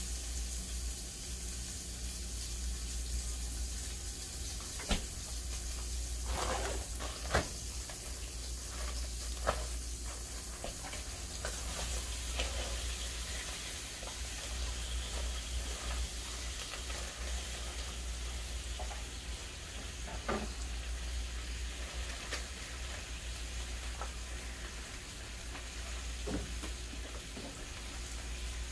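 Pork fat back and shredded cabbage sizzling steadily in a skillet, with a few sharp knocks scattered through as the cabbage is added and handled.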